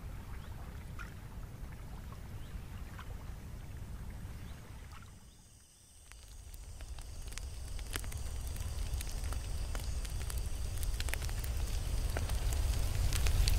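A low steady outdoor rumble that fades away about five seconds in, then a wood fire crackling with scattered sharp pops, growing louder toward the end.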